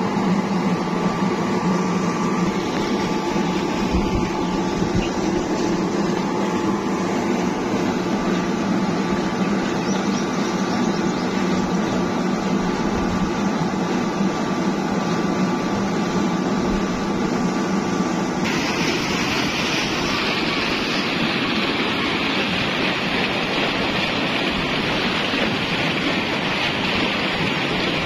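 Large belt-driven electric motor and water pump running with a steady hum. About eighteen seconds in, the rush of water gushing out of the pump's discharge pipes comes up over it.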